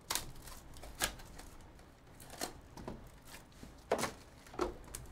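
Shrink-wrapped cardboard trading-card hobby boxes being handled and set down on a table: about five light knocks and taps, the sharpest about four seconds in.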